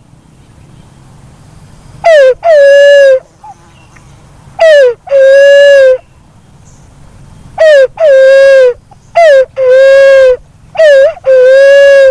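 Black-naped fruit dove (punai walik kembang) calling five times. Each call is a short falling note followed by a longer, steady hooting note of just under a second, repeated every two to three seconds.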